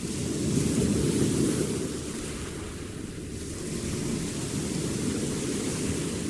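Sea waves breaking and washing on a beach, a steady rush that swells twice.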